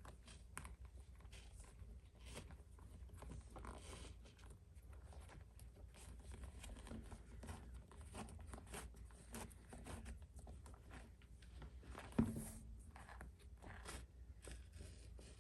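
Faint, irregular rasping and rustling of a leather lace being pulled through the lacing holes of a leather baseball glove, with handling of the glove. One brief louder knock about twelve seconds in.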